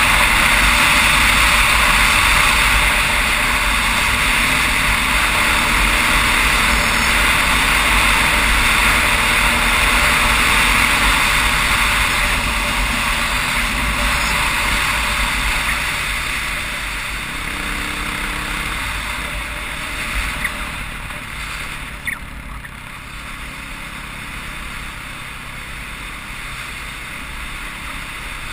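Off-road motorcycle running steadily along a gravel road, heavy wind rush over the microphone covering the engine. It gets quieter about two-thirds of the way through, with a couple of light ticks.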